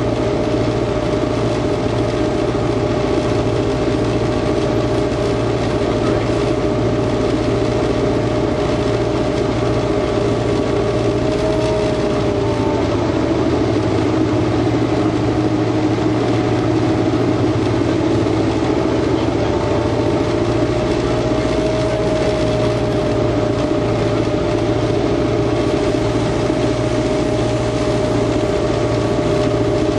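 Inside the cab of a T class diesel-electric locomotive on the move: the diesel engine running steadily under load, with a steady whine over it that drifts slightly in pitch, and the running noise of wheels on track.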